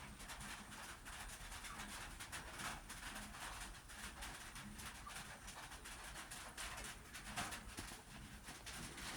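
Rain falling on a roof: a steady hiss with a fine, uneven patter of drops.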